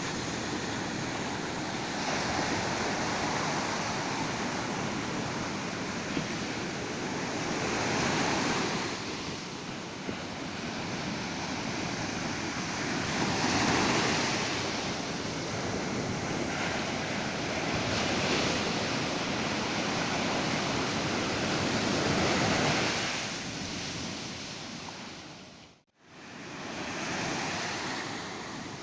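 Ocean surf on a beach: waves breaking and washing in, swelling about every four to five seconds. The sound drops out briefly near the end.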